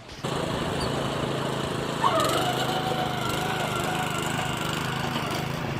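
Ryan walk-behind core aerator's small gasoline engine running steadily on a test run after its drive chain was tightened. It starts abruptly just after the opening, and a faint wavering whine rides over it from about two seconds in.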